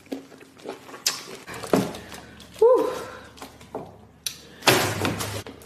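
Close-miked eating of a whole cooked lobster: small clicks and cracks of the shell being broken and pulled apart by hand, a short hummed "mm" about halfway through, and a louder crunching burst about five seconds in.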